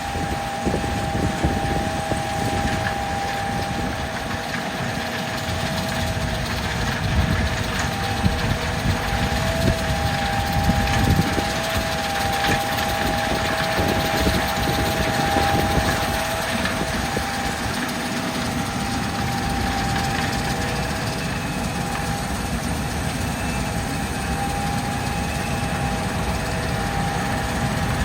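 Tractor engine pulling a grain cart, running steadily, with a steady high whine held over the rumble.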